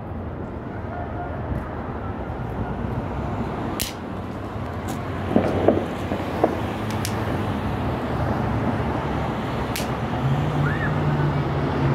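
Distant fireworks going off, heard as a few sharp pops and crackles over steady traffic and street noise. A low, steady engine hum comes in near the end.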